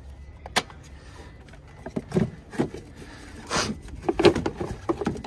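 A string of irregular clicks and knocks, several close together near the end, from hands working plastic engine-bay parts: the air intake box and the mass airflow sensor's wiring connector.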